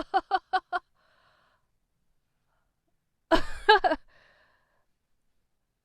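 A person laughs, a quick run of about five short "ha"s. About three seconds later comes one short, sighing vocal sound.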